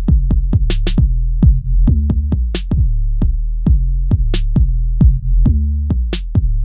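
Instrumental UK hip hop beat: drum-machine kicks and sharp hits several times a second over a deep, held bass line, with a louder hit about every two seconds.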